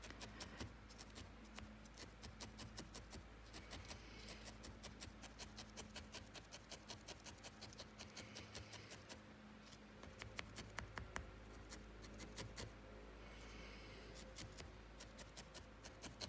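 Dry-felting needle repeatedly stabbing into wool, making faint, rapid, irregular crunchy pokes, several a second, with a few short pauses. Extra wool is being felted onto the forehead of a wool figure.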